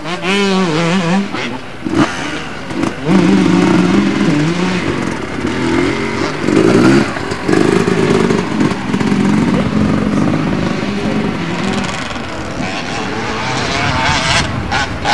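Motocross bike engines running at high revs, their pitch wavering up and down as the throttle opens and closes over the rough track. The loudest stretch is from about 3 to 12 seconds in.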